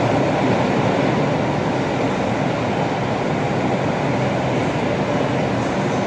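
Steady hum and hiss of a New York City subway train standing in a station between announcements, its onboard equipment running while it waits to close its doors.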